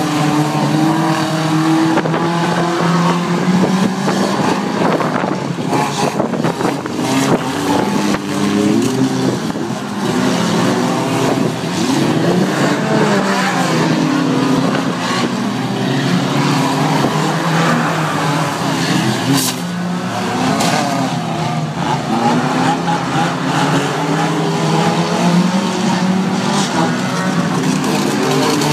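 Several banger racing cars' engines running and revving round an oval track, their overlapping engine notes rising and falling without a break.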